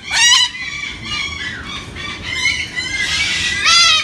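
Umbrella cockatoo squawking: a loud high call at the start, a few fainter calls, then a harsh screech near the end.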